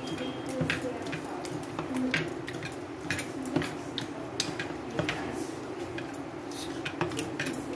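A hand kneading raw chicken pieces in a wet chilli-and-soy marinade in a plastic bowl: soft squelching with many irregular small clicks and taps.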